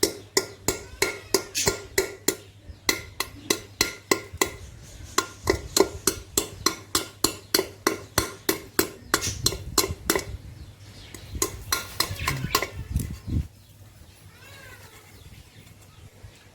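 Rapid, evenly spaced hammer strikes, about three a second, each with a short metallic ring, stopping about 13 seconds in. Small birds chirp faintly near the end.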